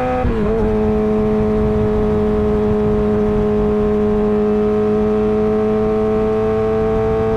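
Suzuki GSX-R600 inline-four engine, heard through an M4 GP slip-on exhaust, held at steady high revs. It gives a loud, even, high-pitched drone that dips slightly in pitch about a third of a second in.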